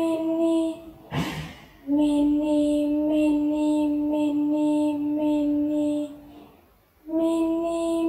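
A high-pitched voice chanting "mini mini" over and over on one held note. It breaks off briefly about a second in with a breathy rush, holds a slightly lower note for about four seconds, then falls quiet for about a second near the end before starting again.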